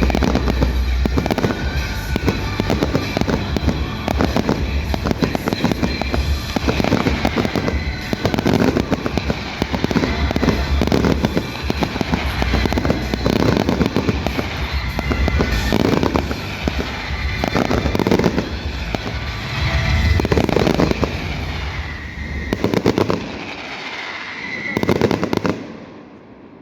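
Fireworks display: a dense, rapid barrage of shell bursts and crackling with music under it. The bursts thin out and stop near the end.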